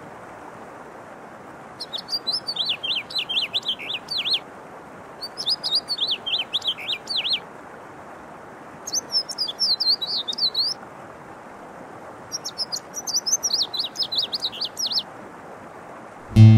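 A songbird singing four phrases of rapid, high, wavering notes, each about two and a half seconds long with pauses of a second or so between them, over a faint steady hiss. Strummed acoustic guitar comes in right at the end.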